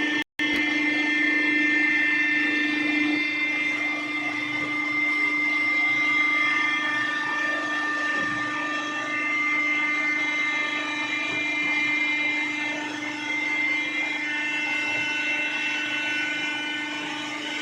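Electric motor and hydraulic pump of a cardboard baling press running steadily, giving a constant low hum with a high whine over it. The sound cuts out for an instant just after the start.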